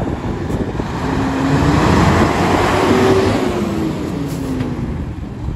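A motor vehicle driving past close by. Engine and road noise swell to a peak about halfway through, then fade as the engine pitch drops.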